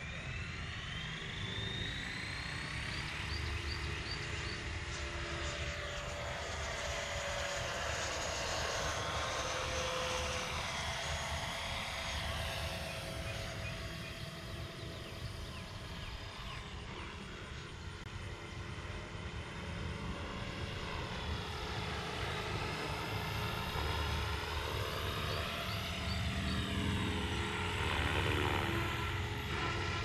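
E-flite F-16 with a 70 mm electric ducted fan flying overhead: the fan's high whine swells and rises and falls in pitch as the jet makes passes, loudest near the end.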